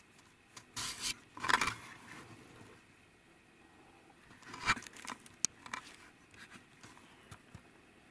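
A few short scrapes and rustles close to the microphone, from handling as the zoomed-in camera is moved: a cluster about a second in, another near five seconds in, then a single sharp tick.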